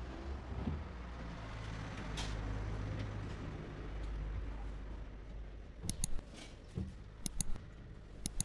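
MDF shoe cabinet's tilt-out drawers being flipped open and pushed shut, with sharp clicks and knocks from the drawer hinges and stops, mostly bunched in the second half, over a steady low hum.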